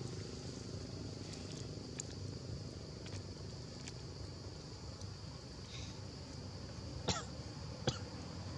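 Steady outdoor background noise, a low rumble under a faint, even high hum, broken by two short sharp clicks about seven and eight seconds in.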